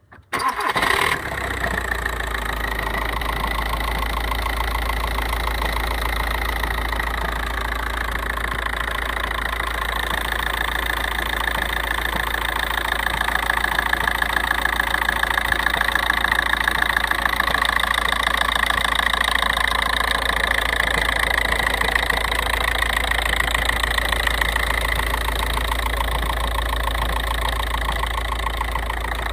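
A 1.9 TDI diesel engine idling, with a steady high-pitched whine over the engine note and a little louder in the middle: the weird noise that the owner cannot place.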